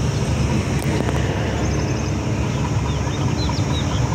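Steady low rumble of a distant PHA-20 diesel-electric locomotive pulling a passenger train out of the station. A few short bird chirps come in the second half.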